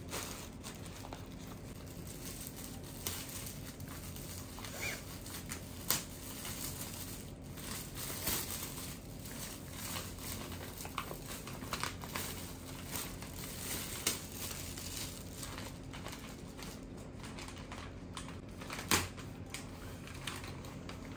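Metallic foil gift wrap and a brown paper mailer bag crinkling and rustling as a present is unwrapped by hand, with a couple of sharper crackles along the way.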